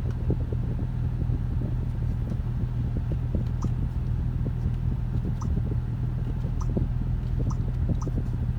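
Steady low mechanical drone, with about five short, faint, high clicks from about three and a half seconds in.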